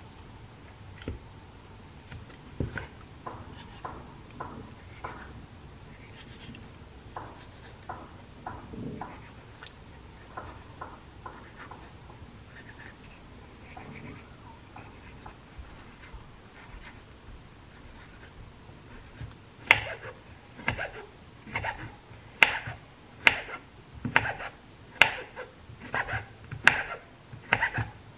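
Kitchen knife cutting raw abalone on a wooden cutting board. It starts with scattered soft slicing strokes, then about two-thirds of the way through comes a steady run of sharper chops, a little under two a second.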